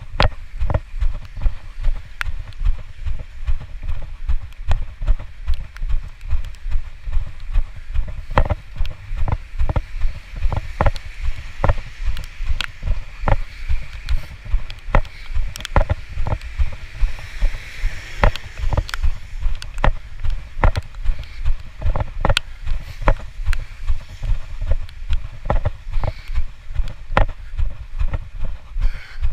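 Steady rhythm of low thumps and knocks from a handheld camera jolting with each walking step. Around the middle, the hiss of a car's tyres on the wet road swells and fades.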